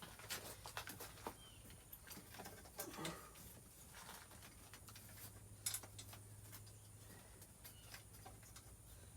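Faint, scattered light clicks and taps of small parts being handled during carburetor work, over a steady low hum.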